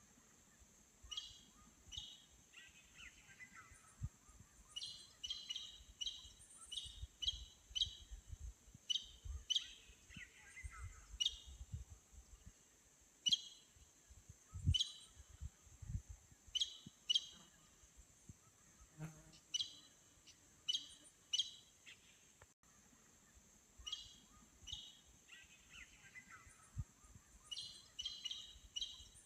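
Many-banded aracari calling: sharp, short notes repeated singly and in quick runs, with a few longer falling calls mixed in, over a steady high-pitched hiss.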